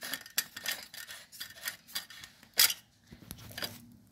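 Handling clicks and scrapes of a compact fluorescent bulb's plastic base being fitted into the holder of a metal work lamp, with light knocks against its metal reflector. There is a sharper single click about two and a half seconds in.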